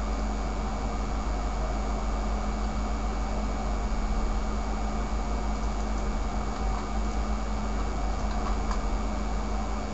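Steady background hum and hiss, unchanging, with no distinct events.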